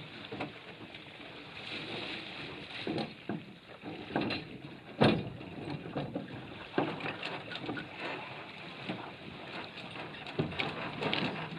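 Small sailboat at the water's edge: water lapping and splashing against the hull, with scattered knocks and bumps from the boat being handled, the loudest about five seconds in.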